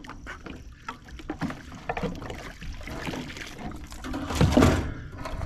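Water splashing and sloshing against a small plastic boat as a speared fish is hauled in over its side, with irregular knocks on the hull. The loudest burst of splashing comes about four and a half seconds in.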